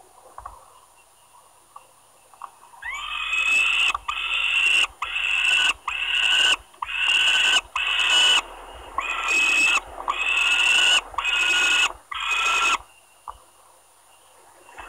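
Young peregrine falcons calling harshly: about ten loud, drawn-out calls in quick succession, each just under a second long, starting about three seconds in and stopping near the end. These are the nestlings' begging calls as they compete for food brought by the parent.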